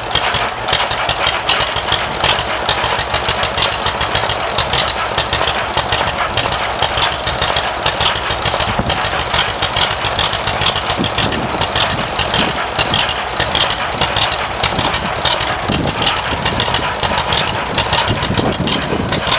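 1935 John Deere Model B tractor's two-cylinder engine running steadily, with rapid, even firing beats.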